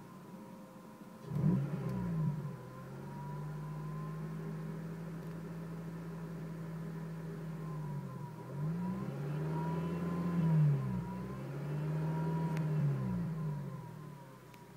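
2006 Honda Civic Si's K20Z3 four-cylinder engine revved several times and held at raised revs for a few seconds. A faint whine rides along with the engine, the unexplained noise the owner is trying to find.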